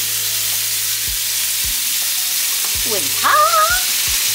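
Ground-turkey burger patties sizzling in hot nonstick frying pans on an electric stovetop, a steady frying hiss. About three seconds in, a short wavering high-pitched tone rises briefly over the sizzle.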